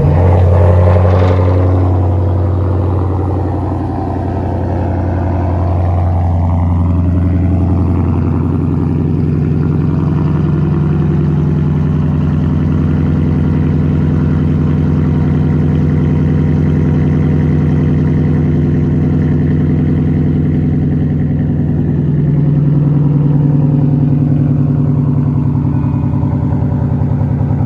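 Ford Mustang 5.0 V8 running just after start-up, its revs high at first and dropping over the first few seconds to a steady idle.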